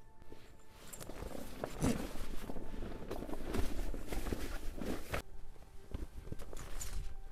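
Rustling and knocking handling noise as a large tarp is rigged on a pole and guy line, cutting off abruptly about five seconds in. Faint background music with held notes plays around it.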